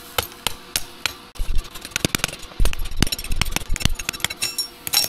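Chipping hammer knocking slag off freshly laid stick-weld beads on a steel flat bar: a quick, irregular run of sharp metallic taps.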